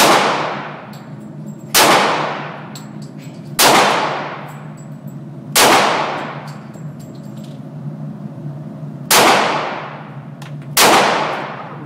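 .40 S&W Glock pistol fired six times: four shots about two seconds apart, a pause of several seconds, then two more. Each shot has a long echoing tail.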